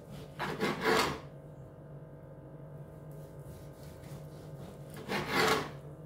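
Long carving knife sawing through a crusted roast pork shoulder and rasping on a wooden cutting board, in two strokes about four and a half seconds apart.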